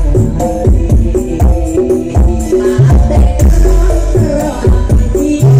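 Loud music played through a large carnival sound system, with a heavy, regular bass beat under a melody.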